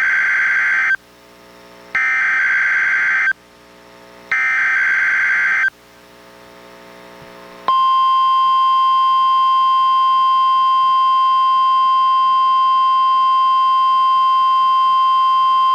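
NOAA Weather Radio test broadcast from a Reecom R-1630 weather radio: three buzzy SAME header data bursts, each a little over a second long, then after a short pause the steady 1050 Hz warning alarm tone, held without a break from about eight seconds in.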